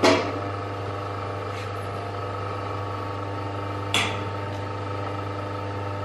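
Steady electrical hum from the hydraulic crimping machine, with two sharp metal knocks: one right at the start and one about four seconds in, as the crimped air-spring bag and tools are handled.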